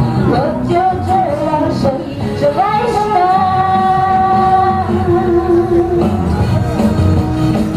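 Loud pop music with a woman singing, played over a sound truck's loudspeakers; she holds one long note about three seconds in.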